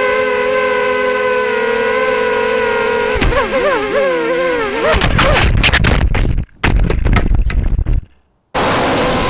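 Quadcopter's electric motors and propellers whining steadily, then wavering rapidly up and down in pitch as the throttle is worked. About five seconds in, the drone crashes with a burst of sharp clattering impacts. Near the end, after a brief gap, the motor whine starts again.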